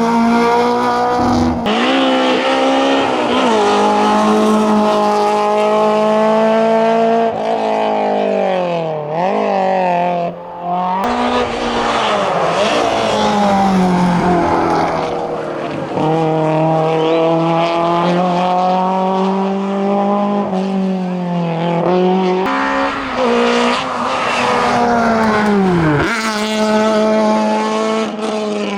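Peugeot 205 hillclimb car's engine driven flat out. The revs climb steadily and fall sharply at gear changes several times, with dips and quick rises as it lifts off and brakes for corners and then accelerates again.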